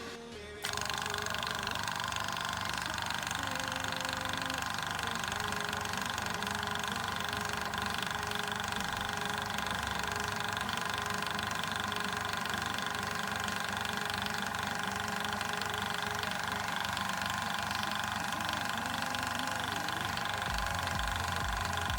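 Hill EC-3000 high-pressure PCP compressor switching on about half a second in and running steadily with a constant whine, filling an air pistol toward 200 bar.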